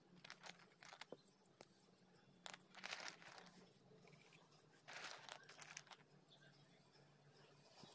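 Faint crunchy rustling of dry butter grey clay chunks as a hand stirs and picks through them, in a few short bursts a couple of seconds apart, over a faint steady low hum.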